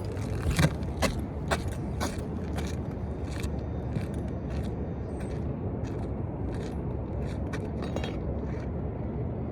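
A run of short, light clicks and clinks, about two a second at first and then sparser and fainter, over a steady low background rumble.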